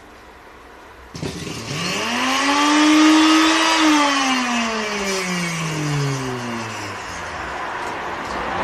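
Electric sewing-machine motor switched on about a second in, whining up to speed with a hiss over it, then winding down in a long falling whine as it coasts to a stop.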